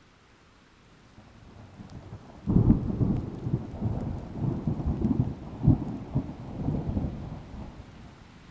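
A thunderclap: a low rumble builds from about a second in, breaks loudly about two and a half seconds in, and rolls on in uneven peaks for about five seconds before fading, over a faint hiss of rain.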